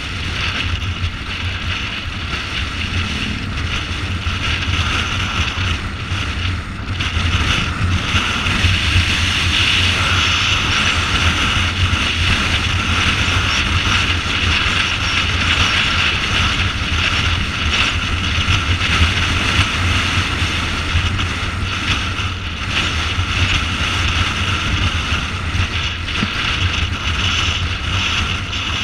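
Motorcycle engine running steadily at cruising speed, heard under heavy wind rushing over the microphone.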